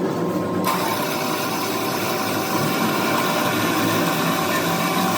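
A power tool starts up about a second in and runs steadily: a hiss with several steady tones under it.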